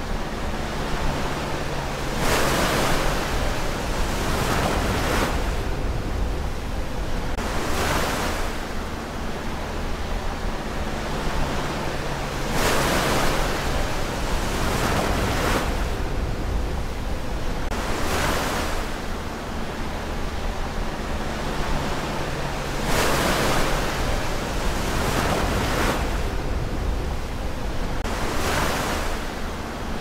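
Ocean surf: waves breaking and washing up the shore, a loud surge every few seconds that swells and then fades back into a steady wash.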